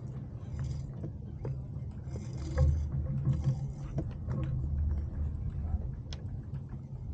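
A Hustler 35 yacht under sail: a rumble of wind on the microphone and washes of water along the hull, with scattered knocks and clicks from the boat's fittings.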